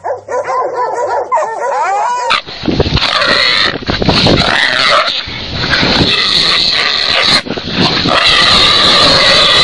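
Hunting dogs yipping and whining in short, high, wavering cries. About two and a half seconds in, these give way to a loud, harsh, noisy scuffle of dogs on a wild boar.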